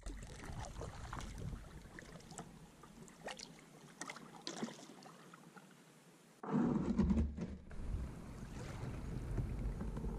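Water lapping and dripping around a kayak as it glides in to a dock, with small scattered splashes. About six and a half seconds in the sound cuts abruptly to a louder rumble of wind on the microphone.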